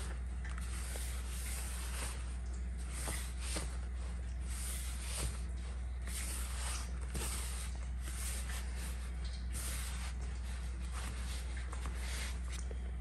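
Hands rubbing and squeezing crumbly flour-and-oil mix in a plastic bowl: repeated short, dry rustling squishes, one to two a second, over a steady low hum.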